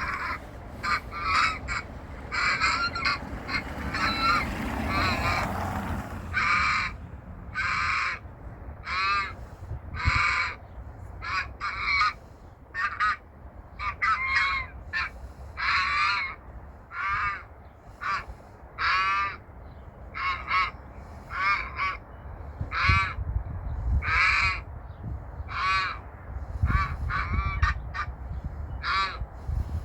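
Geese honking over and over, several birds overlapping for the first few seconds, then single honks about once a second.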